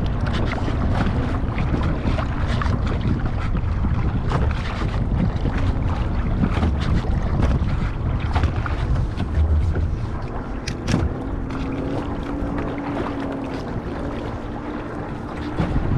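Kayak moving over choppy water: wind noise rumbling on the microphone, with water slapping and splashing irregularly against the plastic hull. There is one sharp knock about eleven seconds in, and a faint steady hum joins in the second half.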